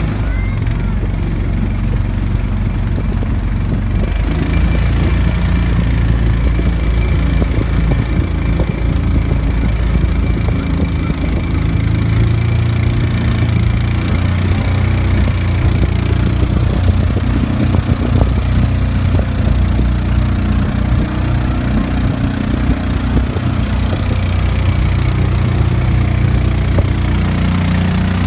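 Motorboat engine running steadily under way, with water rushing along the hull, a little fuller from about four seconds in.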